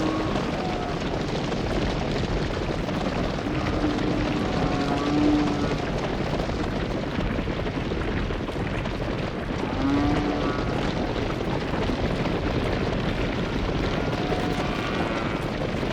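Cattle mooing: a few separate drawn-out calls, around four seconds in, around ten seconds in and more faintly near the end, over a steady rushing background noise.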